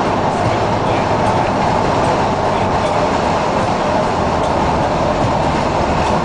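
Steady road and engine drone inside a car's cabin while cruising at constant speed, with tyre and wind noise and no revving.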